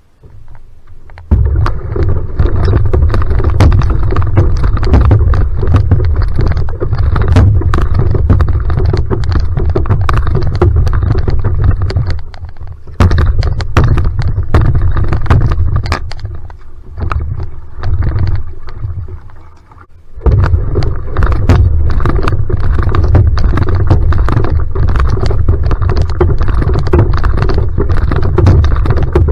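Outrigger canoe (va'a) driven hard from a standing start: water rushing and splashing past the hull-mounted microphone under a heavy low rumble, with the quick paddle strokes cutting in as splashes and knocks. The noise starts suddenly about a second in, eases and fades between about 12 and 20 seconds, then starts suddenly again with the next start.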